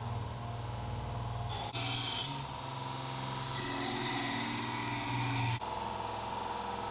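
Belt sander running with a steady motor hum, while a rebar knife blank is pressed against the belt from a couple of seconds in until a little before the end, giving a rough, rasping grinding noise.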